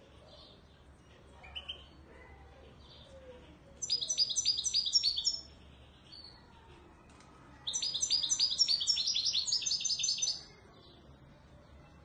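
Caged Moroccan widani goldfinch (European goldfinch) singing. After a few faint short calls it gives two loud bursts of fast repeated high notes, a short one about four seconds in and a longer one about eight seconds in.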